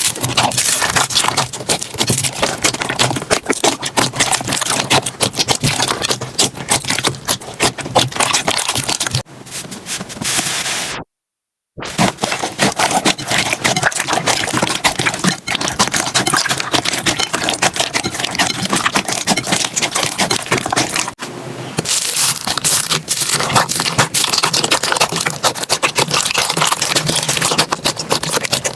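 Slime being squeezed, pressed and stretched, making a dense run of crackling, popping clicks. The sound breaks off into a moment of silence about eleven seconds in, then carries on with a changed texture.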